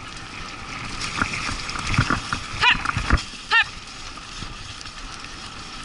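Dog scooter rolling fast over a leaf-covered dirt forest trail: a steady rolling rush with a few knocks and rattles from the bumps, and two short high squeaks about two and a half and three and a half seconds in.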